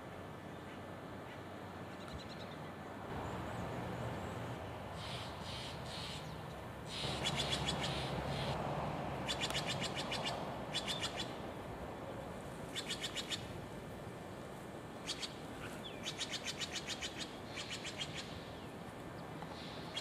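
Wild birds calling in short, rapid high trills, repeated many times, over steady background noise.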